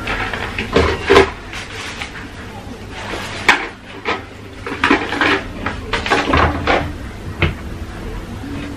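Plastic steamer tray and accessories of a Miyako MCM-508 rice cooker knocking and clattering against its inner pot as they are packed back in, a dozen or so separate knocks, and the hinged lid being shut.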